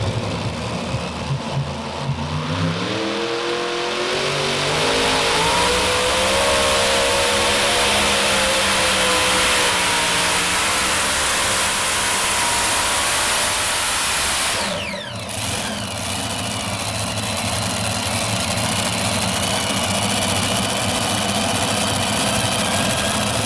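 Multi-engine modified pulling tractor with open exhausts revving up as it leaves the line, its pitch rising over the first few seconds, then running at full throttle as it pulls the sled. The sound drops briefly about fifteen seconds in, then picks back up.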